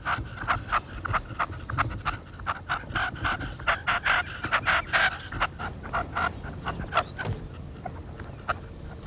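Red-legged partridges calling: a long run of short clucking notes, about three a second, thinning out after about seven seconds.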